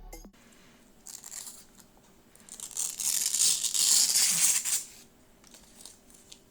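Packaging being handled: a brief rustle, then about two seconds of louder rustling and tearing, followed by a few faint clicks near the end.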